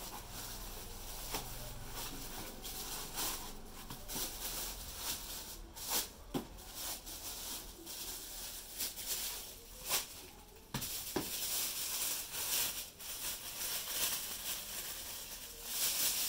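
Plastic wrapping rustling and crinkling as foam packing blocks are pulled off a wrapped soundbar and it is handled, with a few sharp knocks about six, ten and eleven seconds in.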